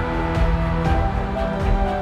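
Background music: held notes over a steady low beat.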